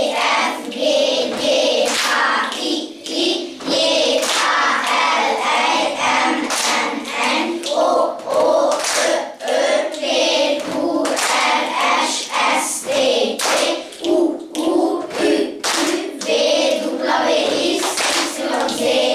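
A class of young children chanting the Hungarian alphabet together letter by letter in a steady rhythm, clapping their hands in time.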